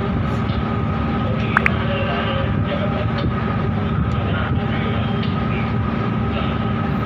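Steady low rumble of tugboat and ship diesel engines working in the harbour, with a faint steady whine above it. A brief high rising chirp comes about one and a half seconds in.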